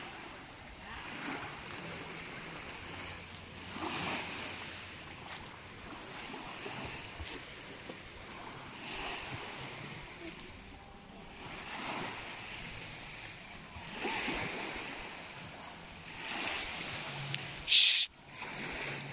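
Small waves lapping at a sandy shore, a soft wash that swells every two or three seconds. Near the end comes one brief, loud burst of hiss.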